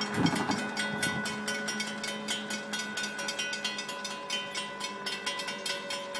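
Railroad grade-crossing bells ringing with rapid, even strokes as the crossing signals activate and the gates come down. A car passes over the crossing in the first second.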